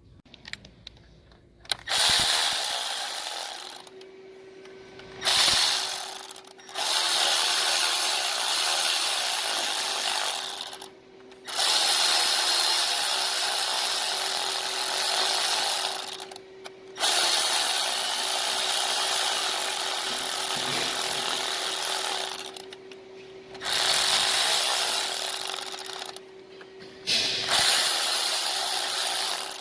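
Handheld power tool running in six long bursts of a few seconds each, with short pauses between, during work on the engine's valve cover.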